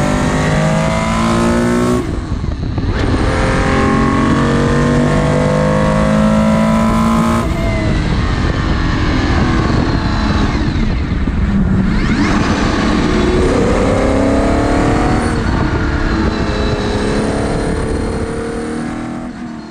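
Race car engine heard from the open cockpit at full throttle, its pitch climbing through the gears with sharp breaks at upshifts about two and seven seconds in. It then drops in pitch as the car slows, and climbs again under hard acceleration near the end.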